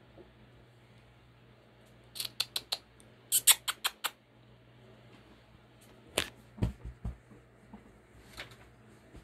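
Pet squirrels scrabbling under a blanket on a bed: quick runs of sharp, scratchy clicks in three bursts, the loudest about three and a half seconds in, with a couple of dull thumps in the last burst.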